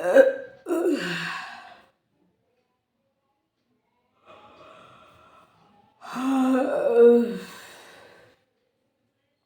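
A person yawning aloud: one long voiced yawn at the start, a fainter breathy one around the middle, and another loud, drawn-out voiced yawn about six seconds in that lasts about two seconds.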